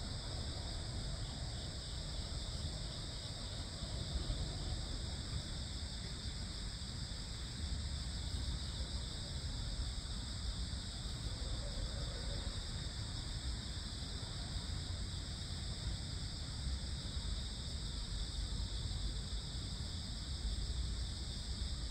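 A steady chorus of crickets and other insects singing without a break, several high-pitched trills layered together, over a low rumble.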